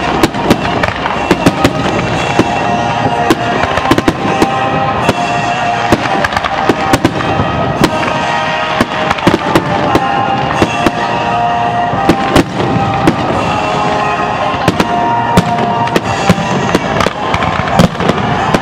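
Fireworks grand finale: a dense, continuous barrage of shell bursts, many sharp bangs a second over steady crackling, without a pause.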